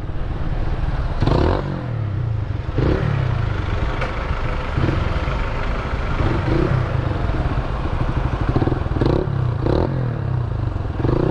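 Honda CBR1000RR Fireblade inline-four engine running through a new Roncar aftermarket exhaust while riding. The engine note rises and falls in pitch several times. The exhaust is deep-toned because its internal packing is still new.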